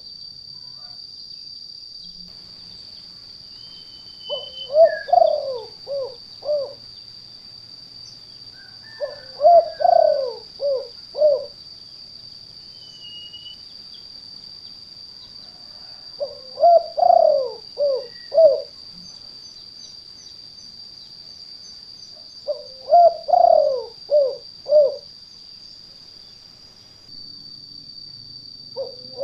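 Spotted dove (tekukur) cooing in the 'kuk 2' song type used as a trapping lure call: four phrases of five or six quick, low coos, repeating about every six seconds. A steady high-pitched whine runs underneath.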